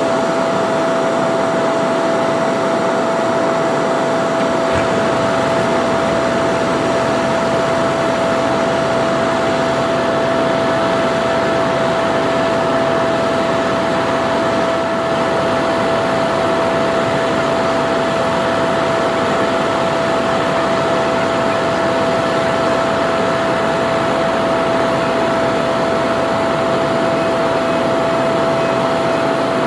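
A boom crane truck's engine and hydraulic pump running steadily under load, a constant drone with a steady whine over it. A deeper rumble joins about five seconds in.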